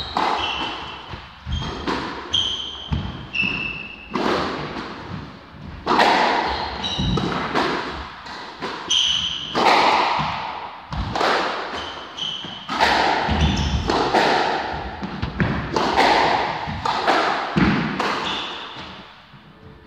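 Squash rally: the ball cracking off rackets and the court walls again and again, each hit ringing in the enclosed court, with short high squeaks of court shoes on the wooden floor between hits. The hits stop about a second before the end.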